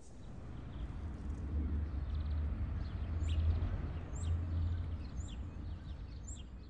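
Outdoor ambience: a low steady rumble that swells through the middle, with a bird's short, high, downward-sweeping chirp repeated about once a second from about three seconds in.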